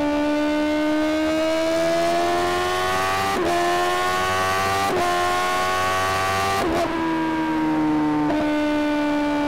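Sportbike engine at high revs under hard acceleration, its pitch climbing steadily with short breaks at about three and a half and five seconds as it shifts up. The pitch drops near seven seconds and then eases slowly downward. A steady rush of wind runs underneath.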